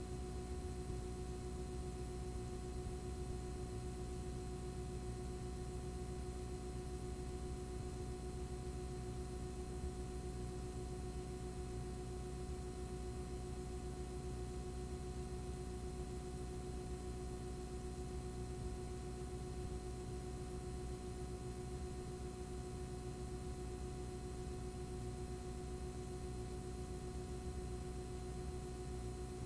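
Steady electrical hum and hiss with a few fixed tones, unchanging throughout and with no programme sound: the noise floor of a blank stretch of the recording.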